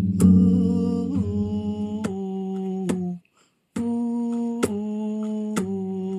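Music: a voice humming long held notes in two phrases, with a brief break about three seconds in and a few sharp ticks.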